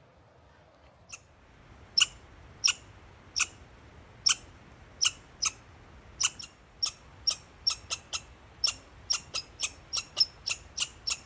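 Sharp clicks in a walking rhythm, first about a second in, then about one every 0.7 seconds, quickening to about two a second: a hiker moving along a frosty, icy trail.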